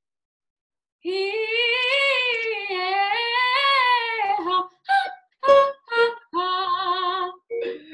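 A young soprano singing a belting-prep vocal exercise over a video call. About a second in she holds a note with vibrato that swells up and down in pitch, then come a few short notes and another held note near the end. Her volume is not loud but steady, at about a consistent 6.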